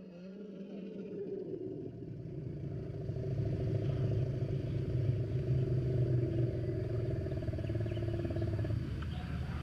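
Sound effect of a woolly mammoth call: one long, low, engine-like rumbling drone that swells over the first few seconds, holds, then stops near the end.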